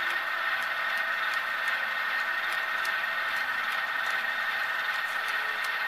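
Model railroad stock cars rolling along metal track: a steady rolling whir from the wheels on the rails, with faint irregular ticks over it.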